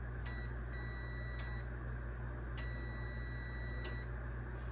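A multimeter's continuity beeper sounding in three stretches: a brief one, then about a second, then about a second and a half. Each beep starts and stops with a sharp click as the plunger of a microwave door micro switch is released and pressed. The beep cutting out whenever the plunger is pressed shows the normally closed switch working as it should. A steady low hum runs underneath.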